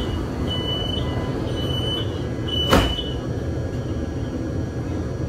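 Metro car's door-closing warning beeping, one short high beep about once a second, then the sliding doors shut with a single loud thud about three seconds in. A steady low rumble from the train runs underneath.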